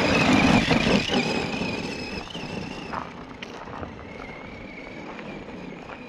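Tamiya Monster Beetle RC truck's electric motor (an 18-turn Speedworks 350) and gearbox whining as it accelerates away over gravel, with a crunching rumble of tyres on stones in the first second. The whine rises in pitch at the start, then holds steady and fades as the truck gets farther off.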